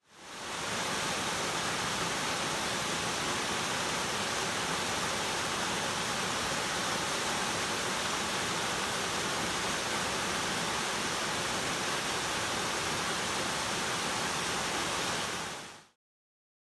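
Waterfall: a steady rush of white water, fading in over the first second and fading out near the end.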